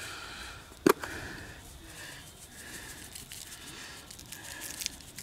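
Badia Complete Seasoning shaken from its plastic shaker bottle over raw beef cubes: faint pattering of granules. A single sharp click comes about a second in.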